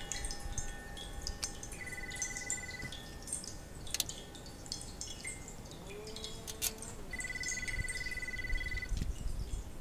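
Small birds chirping, with two rapid trills of about a second each, mixed with a few sharp clicks from hands handling the kayak's aluminium sail fittings.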